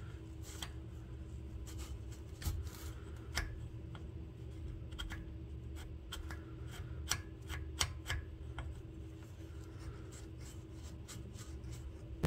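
A pointed steel tool scratching an index mark into the rusty driveshaft and transmission flanges. It goes in short, irregular scrapes and ticks of metal on metal, over a faint steady hum.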